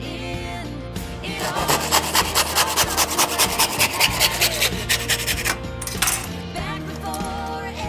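Old hand rip saw cutting a pine board held in a vise, with fast, even back-and-forth strokes of about three a second from about a second and a half in until about five and a half seconds. A pop song with singing plays underneath.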